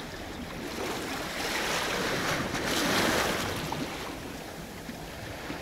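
Sea surf washing onto the shore: one wave swells up about a second and a half in and fades after about three and a half seconds.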